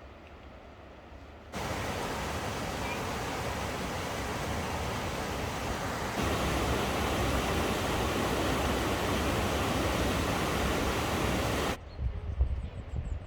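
Waterfall, a steady rush of falling water that cuts in suddenly about a second and a half in, gets louder about six seconds in, and cuts off suddenly near the end.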